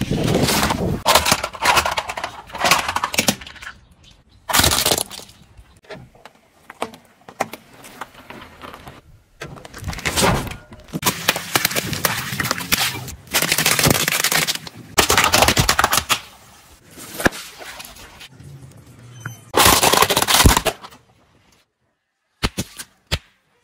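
Objects crushed one after another under a car tyre: a series of sudden cracks, crunches and bursts, among them water balloons popping.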